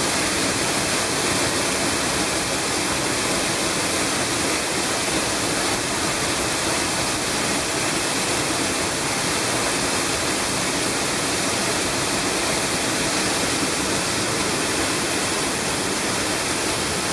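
Sgwd yr Eira waterfall: water falling and crashing down in a steady, even rush of noise, heard from behind the curtain of falling water.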